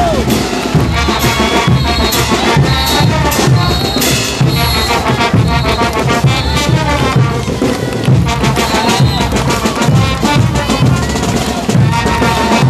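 Brass band playing diablada dance music: trumpets and trombones carrying the melody over steady drums.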